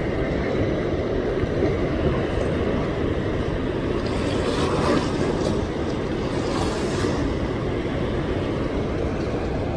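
Steady rush of fast, turbulent water pouring out below a dam's open gates, a constant loud noise with no break.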